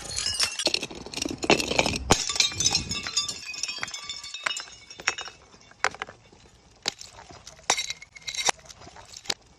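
Glass bottles breaking: a dense run of shattering for about the first four seconds, then scattered single sharp clinks of glass with a short ring.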